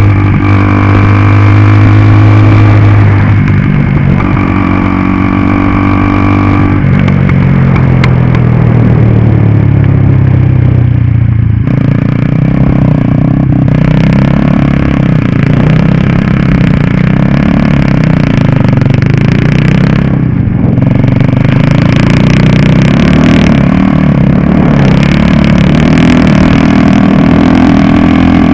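Onboard sound of a 150 cc go-kart engine running hard at racing speed, its revs rising and falling with the throttle, with a brief lift off the throttle about twenty seconds in.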